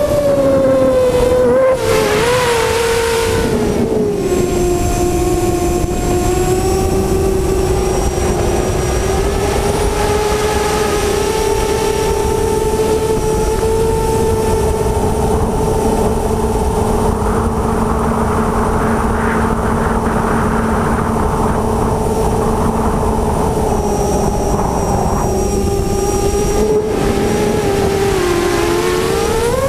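Six Cobra CM2208-20 2000kv brushless motors spinning 6-inch HQProp 6045 propellers on a hexacopter in flight, a loud steady whine heard from on board. The pitch drops over the first few seconds, holds fairly level, and climbs again at the very end as the throttle changes.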